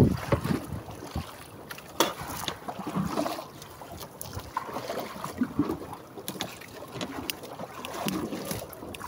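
Choppy sea water slapping and splashing against the hull of a small fishing boat (bangka) rocking in the waves, with a few sharp knocks, the strongest about two seconds in.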